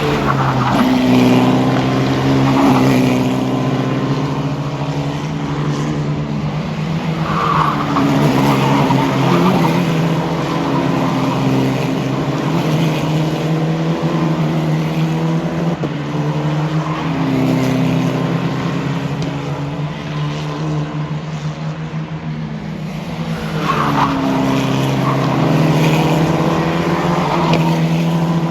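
Single-seater formula race car engines running hard on track, their notes falling and climbing in pitch several times.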